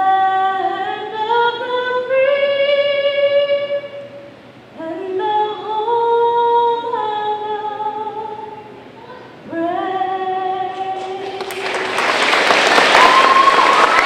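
A woman singing solo and unaccompanied into a microphone, in three long phrases of held, rising notes. Her song ends about eleven seconds in, and loud applause and cheering break out.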